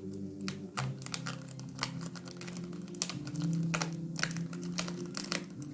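A book parcel's packaging being torn and crinkled open by hand, a run of irregular crackling rustles and small tearing clicks, over a steady low hum.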